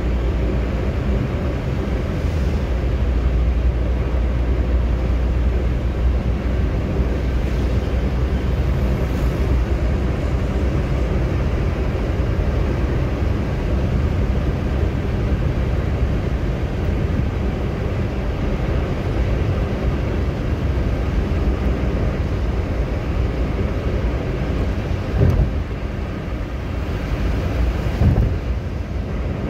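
Steady road noise inside a car's cabin while driving on a highway: tyres on asphalt and the engine running, with two brief thumps a few seconds apart near the end.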